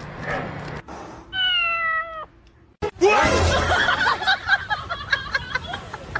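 A domestic cat gives one long meow, lasting about a second and falling slightly in pitch. After a short gap, a busier mix of short squeaky calls and clatter follows.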